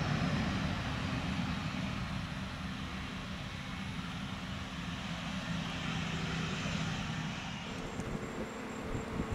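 Boeing 737-700 CFM56 jet engines running as the airliner rolls along the runway, a steady rumble and hiss that slowly eases off. Near the end the sound changes abruptly to a quieter, different jet noise.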